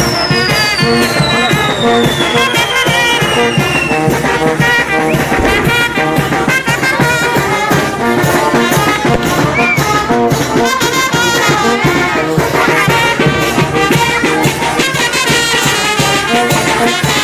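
Brass band music playing loudly, over frequent pops and crackles of fireworks going off from a burning torito. A high whistle slides down in pitch over the first few seconds.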